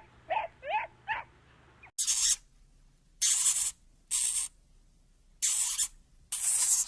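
Three short, high dog whimpers, then five loud hisses about half a second each, like an animal hissing at a threat.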